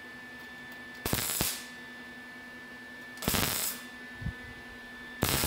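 MIG welder laying three short tack welds on a sheet-steel patch panel. Each is a brief burst of arc noise about half a second long, roughly two seconds apart, and the third runs on past the end.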